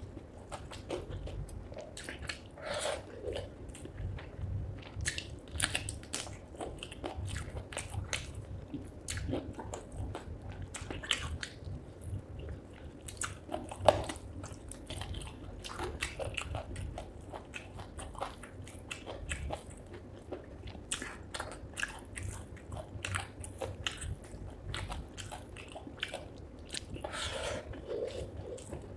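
Close-miked chewing and biting of spicy chicken feet curry with rice: irregular wet clicks and small crunches as skin and cartilage are chewed, with one sharper, louder crunch about halfway through.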